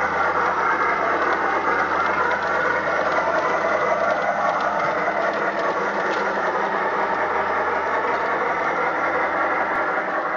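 Battery-powered Accucraft K27 garden-railway locomotive running fast with its freight train, its old Sierra sound system playing a steady steam-locomotive running sound, which the owner says is not quite set up right.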